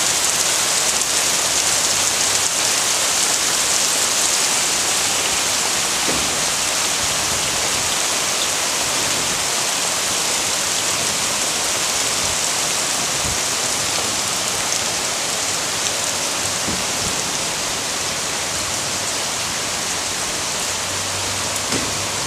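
Heavy tropical downpour: rain falling steadily onto flooded ground, foliage and a lake, with water streaming off the edge of a thatched roof.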